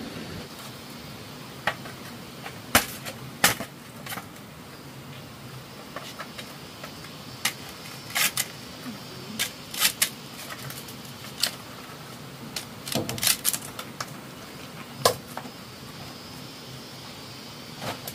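Irregular sharp clicks and knocks, about fifteen scattered through, some in quick clusters, over a steady hiss.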